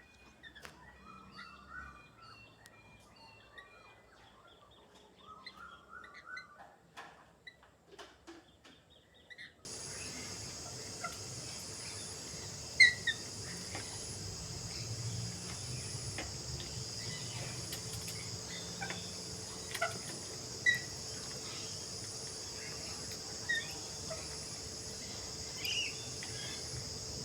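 Birds calling in short chirping phrases; about ten seconds in the sound changes abruptly to a steady high insect drone with a faint pulsing edge, over which single sharp bird chirps come every second or two.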